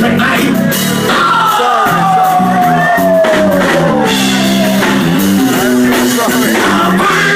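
Instrumental band music with drums and a stepping bass line; a long sliding note falls steadily in pitch from about a second in until about four seconds in.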